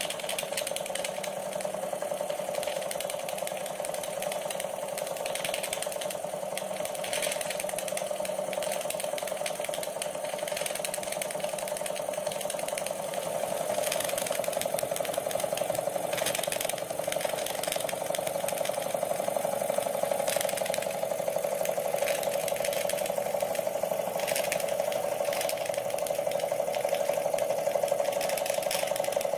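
Wilesco vertical-boiler model steam engine running steadily under steam, its cylinder and flywheel making a fast, even clatter over a steady hum.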